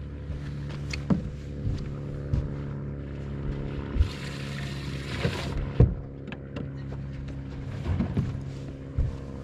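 Steady motor hum from the fishing boat, with scattered knocks and thumps on the boat and a short burst of hiss about four seconds in.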